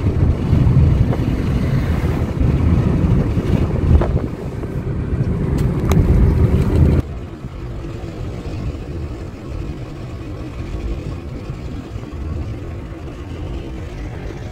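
Car driving at speed: a loud, steady rush of wind and road noise. About halfway in it drops suddenly to a quieter, even hum of tyres and engine heard inside the cabin.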